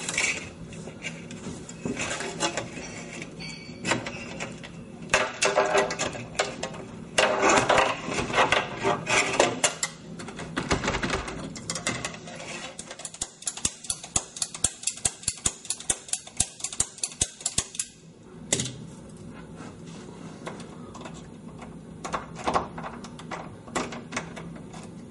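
A locksmith's tools working in a door lock to open it: irregular small metal clicks and scrapes, with a run of rapid clicks, several a second, around the middle.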